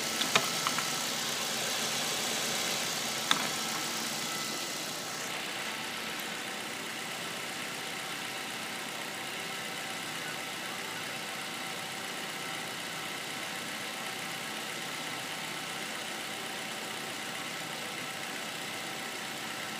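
Ford Focus II 1.8-litre four-cylinder petrol engine (QQDB) idling steadily, with a few sharp clicks in the first few seconds.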